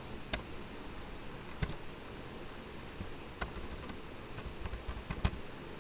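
Computer keyboard being typed on: a few single keystrokes, then quicker runs of clicks in the second half, over a steady background hiss.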